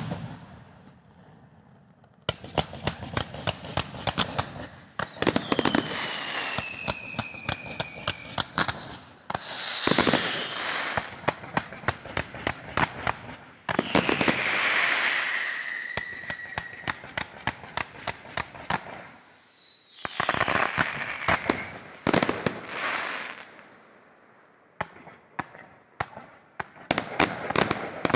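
Fireworks display: a loud bang, then rapid runs of sharp cracks and crackling bursts, with several whistling shells whose tone falls in pitch, easing briefly before a fresh volley of cracks near the end.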